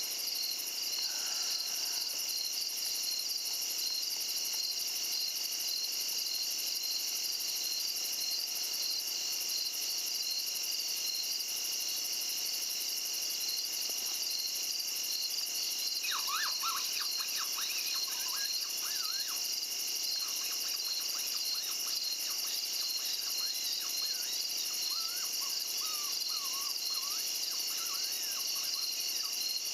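Steady night chorus of crickets and other insects, a continuous high trill. About halfway through, a run of quick, high, wavering calls comes in for roughly ten seconds, then dies away.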